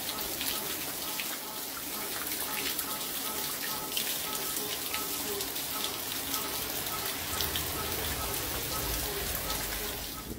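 Steady rain falling and splashing on hard surfaces, with many separate drop hits. A faint repeating beep sounds behind it, and a low rumble comes in near the end.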